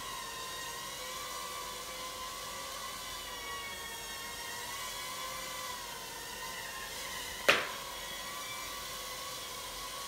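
Sky Viper M550 nano quadcopter's small motors and propellers whining steadily in flight, the pitch wavering slightly as the throttle shifts. A single sharp knock about seven and a half seconds in.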